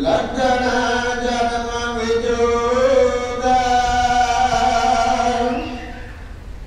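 A man's voice chanting Gurbani in one long, drawn-out melodic phrase with held notes, fading about six seconds in.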